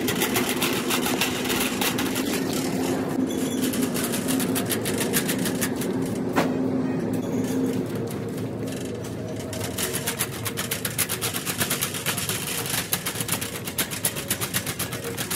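Metal shopping cart rattling as it is pushed along a tiled store floor: a fast, even run of clicks that becomes more distinct in the second half.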